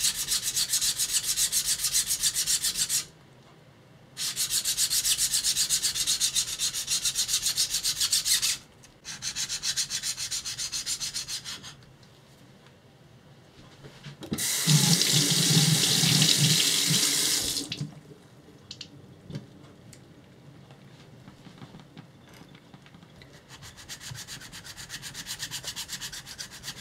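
Steel knife blade stroked back and forth on a wet whetstone: sets of rapid, rhythmic scraping strokes with pauses between them, fainter near the end. About halfway through, roughly three seconds of running tap water splashing, wetting the stone.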